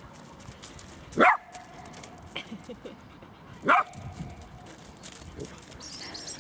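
Bearded collie barking twice in play, two short barks about two and a half seconds apart, each rising quickly in pitch.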